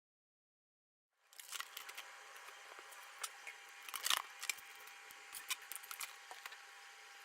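Faint small clicks and light rustling from objects being handled, over a low hiss, starting about a second in after silence; the sharpest click comes about four seconds in.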